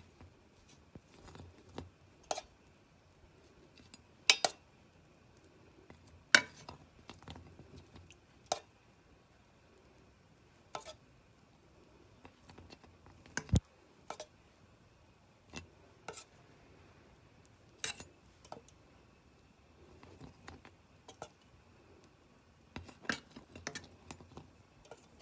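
Kitchen utensils clinking and knocking against dishes in scattered, irregular taps while a syrup-soaked cake is finished with grated walnuts; a few sharper knocks stand out, one deeper thud about halfway.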